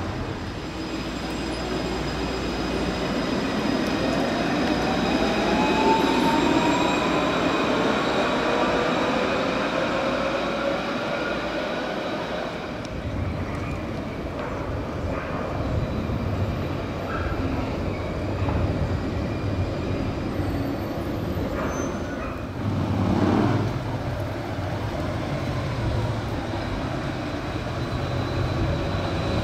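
Tram on street rails. Over the first dozen seconds its electric traction motors whine in a tone that rises steadily in pitch as it gathers speed, over rolling noise and high, steady wheel squeal. It is then quieter as a tram approaches, with a brief louder rumble a little past two-thirds through.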